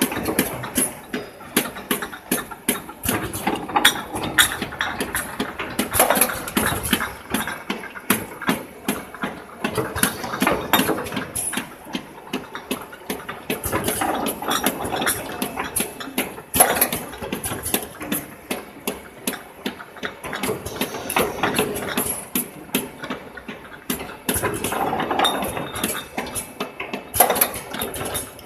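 Champagne bottling line machinery running: a dense, irregular clatter of clicks and knocks, several a second, from glass bottles and machine parts moving through the star wheel and rotary head, over a steady mechanical whir.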